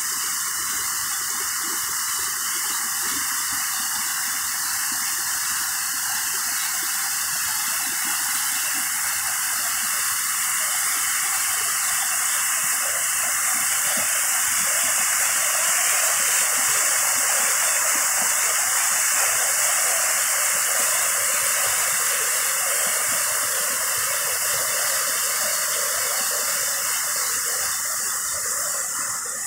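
Creek in flood after heavy thunderstorm rain: muddy water rushing and churning over rocky rapids and ledges, a steady loud rush that swells a little midway.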